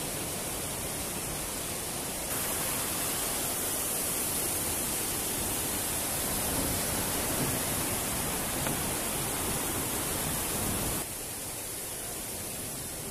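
Steady rushing of a mountain river flowing through a gorge. It grows louder about two seconds in and drops back near the end.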